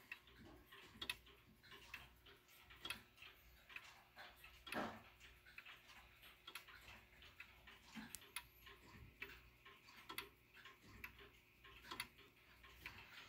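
Hermle 451-050H grandfather-clock movement ticking faintly and steadily, its escapement beating roughly once a second.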